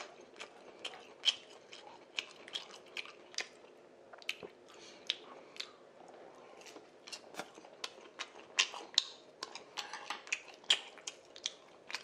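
Close-miked chewing of spicy tteokbokki, with irregular sharp mouth smacks and clicks, several close together at times.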